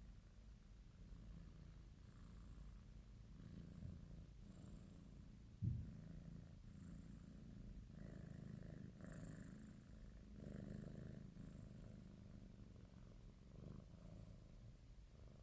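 British Shorthair cat purring faintly, a low, even rumble. A single brief thump comes a little over five seconds in.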